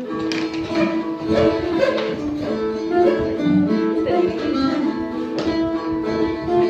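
A phin, the Isan plucked lute, playing a continuous melody of plucked notes.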